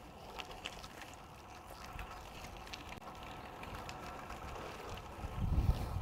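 Faint outdoor ambience with a few light ticks early on, then wind buffeting the microphone in low rumbling gusts from about five seconds in.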